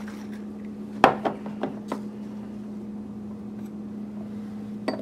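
Stainless steel cocktail shaker being handled. There is a sharp metal clink about a second in, followed by three lighter clicks, and a couple more clicks near the end.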